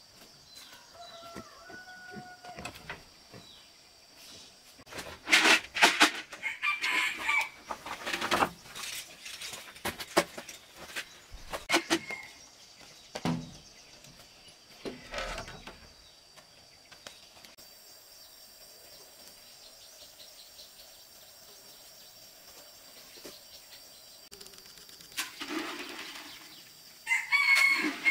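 Farmyard chickens calling, with a rooster crowing; the calls come in loud clusters a few seconds in and again near the end.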